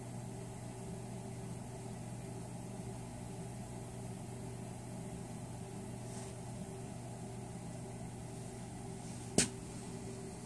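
Steady hum of a hydronic boiler system running, boiler and circulator pumps going, with a few fixed tones. About nine seconds in there is a single sharp click, a button pressed on a handheld digital thermometer.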